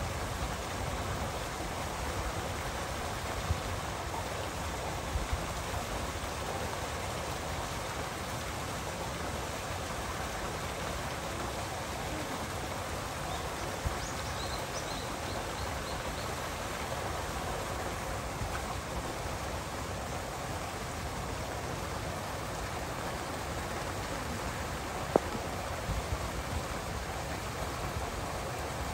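Steady rushing splash of an artificial waterfall pouring into a seal pool, with a few brief knocks.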